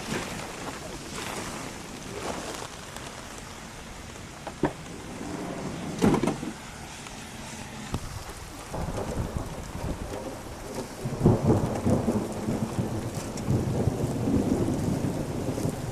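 Steady rain falling, with a few sharp knocks about a third of the way in and a louder, uneven low rumbling through the second half.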